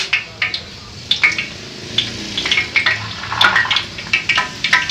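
Irregular light clicks and crackles from cooking oil heating in a frying pan on a gas stove, mixed with clinks of kitchen utensils being handled.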